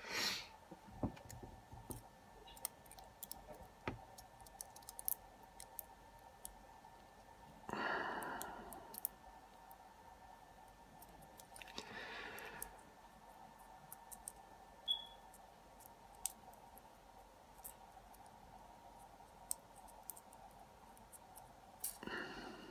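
Scattered light clicks and taps from small metal lockpicking tools and a shim being handled at a padlock, with a few short rustles about eight seconds in, about four seconds later and near the end, over a faint steady hum.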